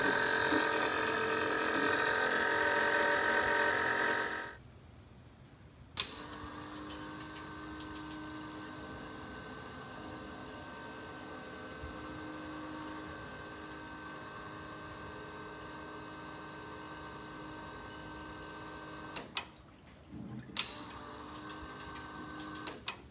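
Coolant gurgling in a bus coolant tank as it is circulated through the cooling and heating system, with a steady pump hum under it; the freshly refilled system still holds air being bled out. About four seconds in the sound drops to a quieter steady hum, broken by a sharp click a little later and a few more clicks near the end.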